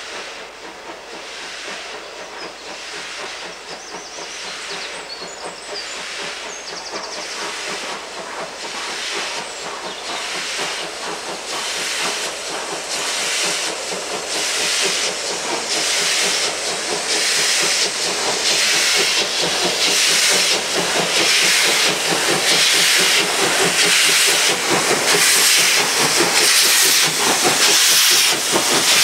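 DB class 01.10 three-cylinder steam locomotive 01 1075 working hard under load, its exhaust beating in an even rhythm over hissing steam from around the cylinders. It grows steadily louder as it approaches and passes close by.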